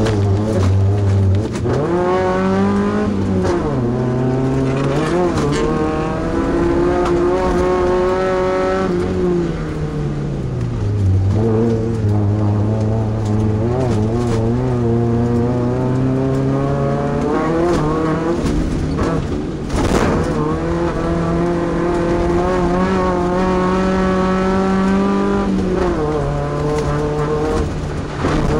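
Class 2 off-road race truck engine driven hard, its pitch climbing and dropping again and again as the throttle opens and the gears change. There is a brief sharp knock about twenty seconds in.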